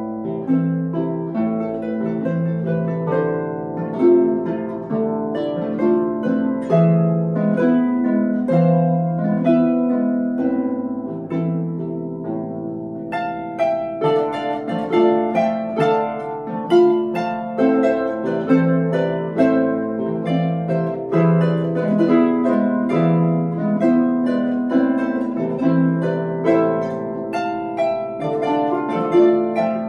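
Two Celtic harps playing a duet, a habanera: plucked notes ringing over held low bass notes.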